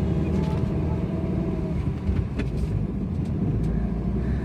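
Vehicle on the move, a steady low rumble of engine and road noise.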